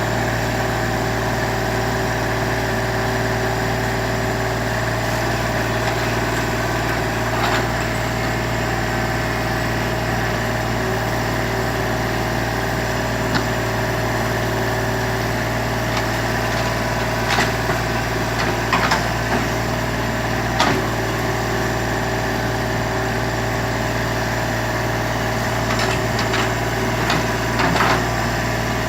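Excavator engine running steadily under a low, even drone, with a few short, sharp knocks scattered through, several of them clustered near the end.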